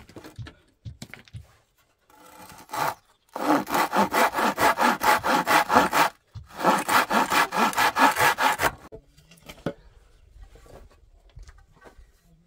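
Handsaw cutting across a wooden plank with quick, even back-and-forth strokes, in two runs with a short pause between, until the board is cut through; a few light knocks follow.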